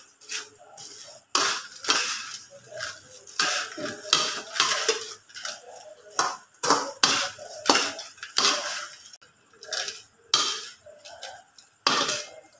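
Metal slotted spatula stirring and scooping cornflakes around an aluminium wok: an irregular run of scrapes and knocks of metal on metal.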